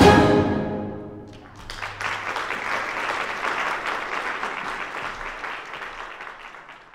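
A wind band's closing chord rings out and dies away in the hall's reverberation; about a second and a half later the audience starts applauding, and the applause fades out near the end.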